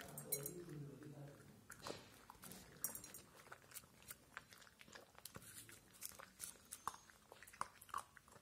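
Pitbull puppy eating dry kibble from a metal bowl: faint, irregular crunching and chewing.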